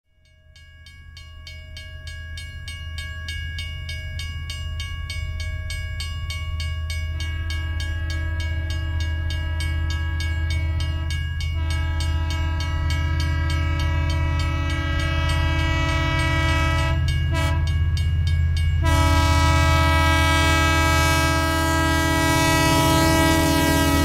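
Train approaching, its low rumble growing steadily louder. Its multi-tone air horn sounds in long blasts with a few short breaks, and the horn's pitch begins to fall right at the end as the train nears.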